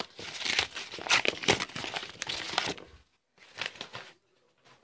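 Paper wrapper crinkling and rustling in quick irregular crackles as a bundle of trading cards is unwrapped by hand, stopping about three seconds in, with one short rustle of handling a little later.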